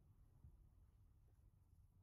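Near silence: faint room tone with a low rumble.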